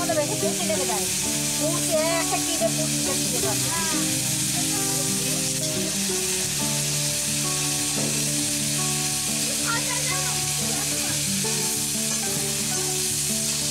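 Potato chunks sizzling steadily as they fry in oil in a kadai, turned now and then with a metal spatula scraping the pan. Light background music plays underneath.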